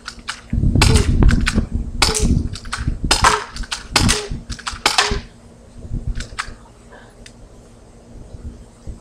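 Airsoft guns firing: a quick string of sharp pops over the first five seconds, then a few fainter shots.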